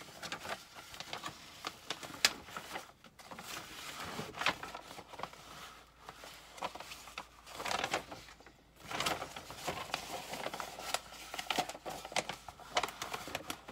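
Rustling and crinkling of a large sheet of paper and plastic film being handled and smoothed flat by hand on a table, with irregular scrapes and light taps.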